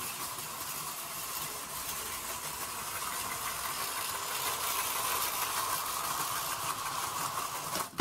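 Clockwork tinplate toy train (Biller-Bahn) running on tinplate track: a steady whirring and rattling from the clockwork motor and wheels, growing a little louder as the train comes close.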